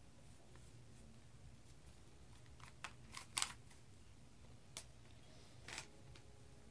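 Rubik's Cube layers being turned by hand: a few scattered plastic clicks, the loudest about three and a half seconds in, over a low steady hum.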